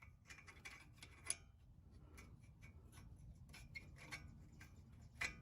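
Faint, irregular light hammer taps on the steel strut assembly, as it is driven down out of its mount a little at a time; a slightly louder tap comes about a second in and another near the end.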